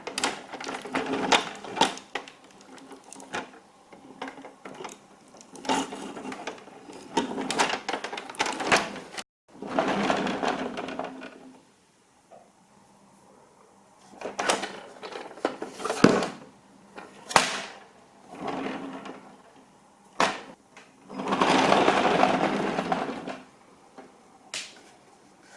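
Irregular bursts of rattling and clicking from plastic toy vehicles being handled and rolled, with longer noisy scraping stretches and an abrupt cut to silence about nine seconds in.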